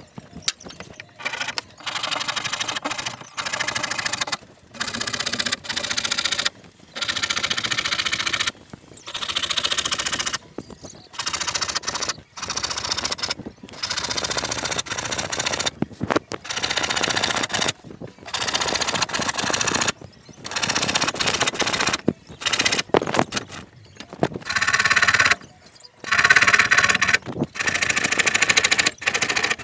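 Hand saw cutting through a plywood sheet, in steady back-and-forth strokes of about one a second.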